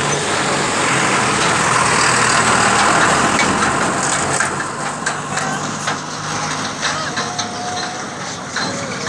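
A motor vehicle's engine running close by: a steady low hum under a broad rushing noise that is loudest about three seconds in and eases toward the end, the hum stopping about seven seconds in. A few light clicks come in the second half.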